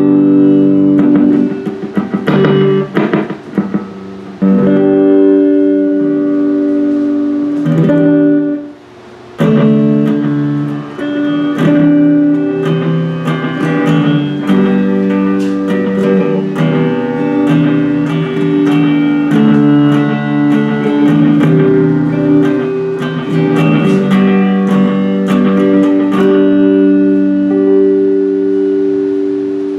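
Electric guitar, a Stratocaster with newly installed pickups, played through an amp: strummed chords and picked notes, with a short break about eight seconds in. The last chord rings out and fades near the end.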